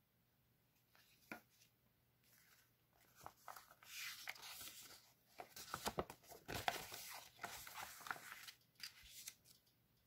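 A zine folded from one sheet of A4 paper being unfolded and opened flat: the paper rustles and crackles at the folds in a run of short rustles from about three seconds in until just before the end, loudest midway. A single faint tap comes a little after one second.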